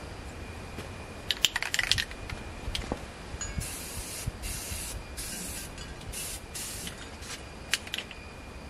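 Paint being sprayed onto a Bridgeport milling machine's cast-iron knee: five or six short bursts of hiss in quick succession, after a quick clatter of clicks about a second and a half in.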